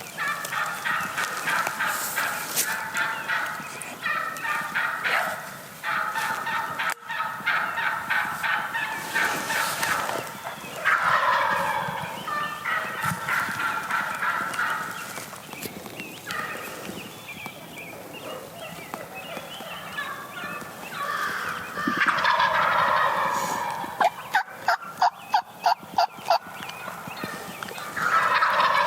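Wild turkey gobblers gobbling again and again, each a rattling call. Near the end there is a quick run of about eight sharp, evenly spaced notes.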